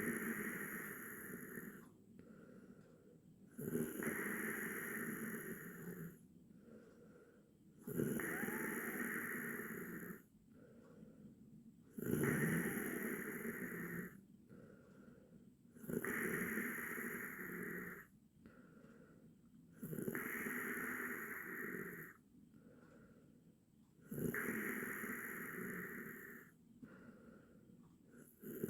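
A person snoring steadily. A loud snore comes about every four seconds and lasts about two seconds, with a much quieter breath between.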